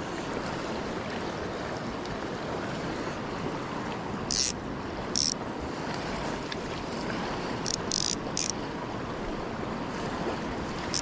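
River current rushing steadily, with a few brief high-pitched zips about four to eight seconds in.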